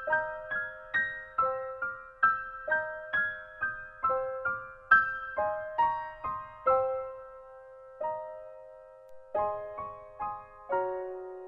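Background piano music: a light piano piece of single struck notes, a few to the second, thinning to a short pause about seven seconds in before carrying on.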